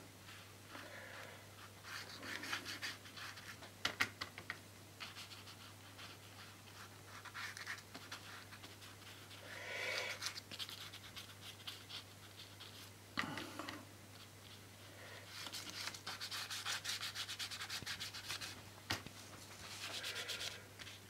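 A paintbrush being worked over paper: dry, scratchy rubbing strokes that come in bursts of a second or more, some of them running several seconds, with a few sharp clicks in between. A low steady hum runs underneath.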